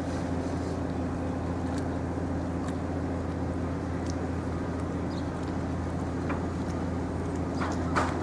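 An engine running steadily with a low hum, with a few faint clicks over it and a sharper click near the end.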